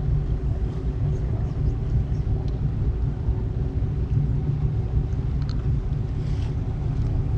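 Tour boat's engine running steadily under way: a low, even drone with a constant hum, heard from the open passenger deck.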